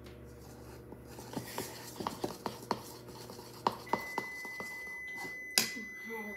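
A spoon clinking and scraping against a bowl while stirring thick icing, in a run of quick taps, then a single sharp knock near the end.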